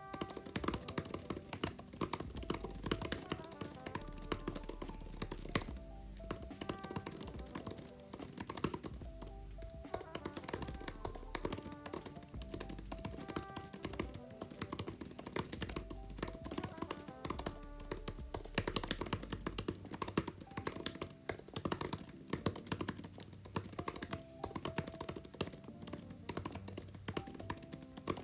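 Fast typing on an Apple Magic Keyboard for iPad, its scissor-switch keys making a quick, irregular run of light clicks and taps throughout, with background music beneath.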